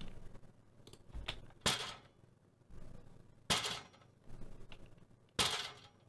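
Recorded sound-effect takes played back one after another: three sharp impact hits about two seconds apart, each with a fainter knock shortly before it.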